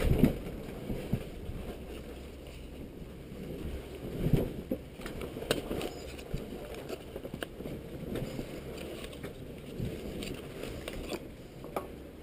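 Small packaging box being handled and opened by hand: scattered light clicks, taps and scrapes of the box and its lid, over a low steady rumble.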